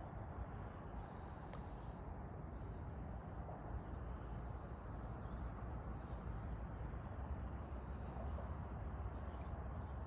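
Steady low outdoor background rumble, with a few faint distant bird calls.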